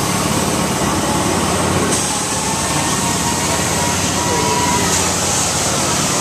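Steady fairground din of a running kiddie helicopter ride: dense mechanical noise with faint background voices.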